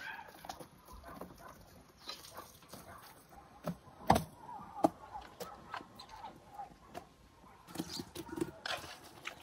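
Hens clucking in the background, with light taps and a couple of sharper knocks, about four and five seconds in, from toppings and wooden boards being handled on the table.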